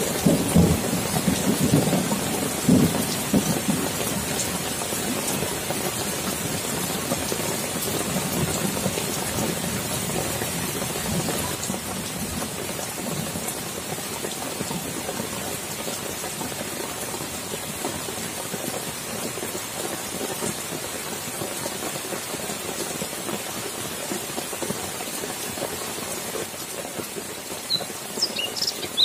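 Heavy rain falling steadily on foliage and standing water, with a low rolling thunder rumble over the first few seconds.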